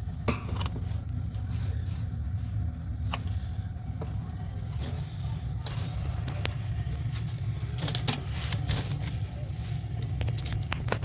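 Steady low rumble under scattered clicks and knocks, the sound of washing machine parts being handled.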